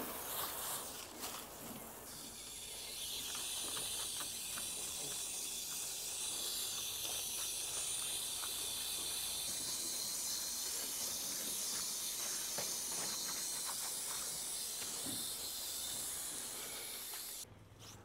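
Water spraying from a hose nozzle in a steady hiss, rinsing an outdoor HVAC coil; it builds a few seconds in and cuts off suddenly near the end.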